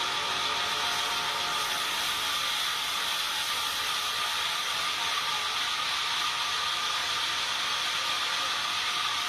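Sawmill machinery running steadily, a continuous hissing mechanical noise with a steady high whine over it.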